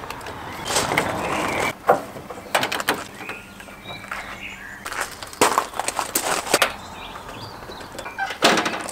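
Plastic tarpaulin rustling and crackling in irregular bursts as it is pulled and tucked over a van's roof, with birds chirping faintly.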